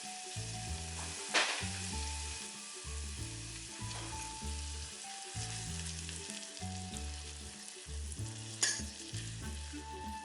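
Onions and butter sizzling in a frying pan as they are stirred, with two sharp clinks of the utensil against the pan, about a second and a half in and near the end.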